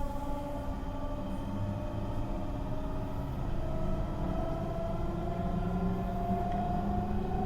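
Meitetsu 3700 series train's Toyo Denki GTO VVVF inverter and traction motors heard from inside the car: several whining tones gliding slowly upward over the rumble of the running train. The inverter sound is unusually loud for inside the car, which the uploader counts as abnormal.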